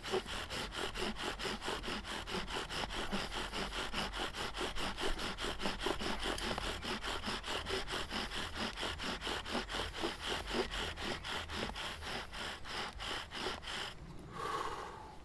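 Bow drill at work: a wooden spindle driven back and forth by the bow, grinding in its socket in the hearth board with quick, even strokes. This is the friction that builds up the charred dust into an ember. The strokes stop about a second before the end.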